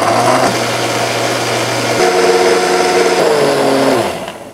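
Electric mixer grinder (mixie) running, its blades grinding tomatoes, coriander, garlic and chillies into chutney. The motor note changes about halfway through, then falls as the motor winds down and stops near the end.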